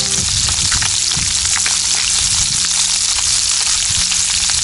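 Small whole fish frying in hot oil in a pan, sizzling steadily with frequent crackles and pops of spitting oil.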